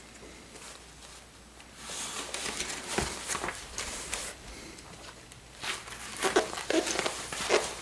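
Pages of a textbook being turned and rustled, with small paper clicks and crinkles, starting about two seconds in.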